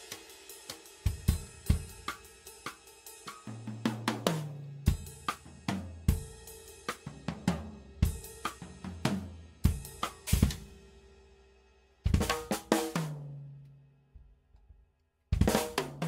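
Tama Starclassic birch drum kit played with sticks: snare, kick drum and cymbals in a groove broken by tom fills, the toms ringing with a clear pitch. About twelve seconds in, a loud hit rings out and dies away to near silence, and the playing starts again just before the end.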